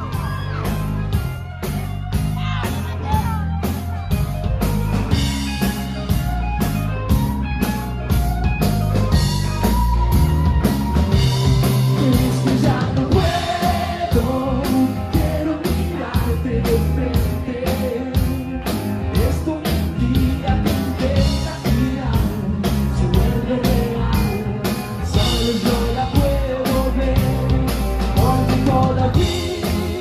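A rock band playing live: a male lead singer over electric guitar and a steady drum beat.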